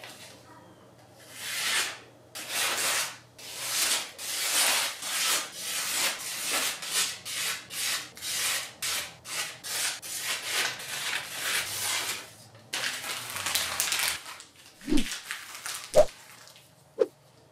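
A home-forged machete edge, finished at 1,000 grit, slicing through sheets of glossy leaflet paper. It makes a string of short rasping cuts, about one or two a second, for some twelve seconds, then three short knocks near the end.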